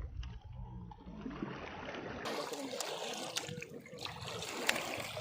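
River water trickling and lapping, with scattered sharp clicks; a low rumble in the first two seconds cuts off abruptly and the water noise turns brighter.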